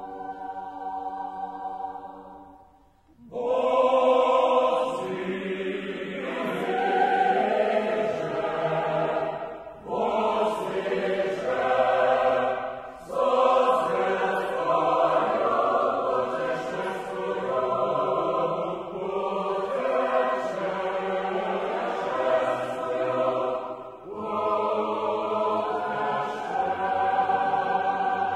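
Background music of a choir singing: a held chord fades out over the first few seconds, then a new piece begins about three seconds in and moves in long phrases with brief breaks between them.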